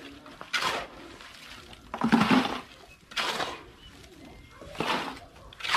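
Wet concrete being worked by hand while a column form is filled, heard as repeated swishing strokes about one every second and a half, the loudest about two seconds in.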